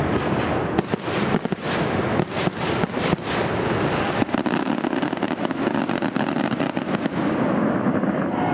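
Aerial fireworks exploding overhead in quick succession. A rapid string of sharp bangs comes first, then about four seconds of dense, overlapping crackling that begins to fade near the end.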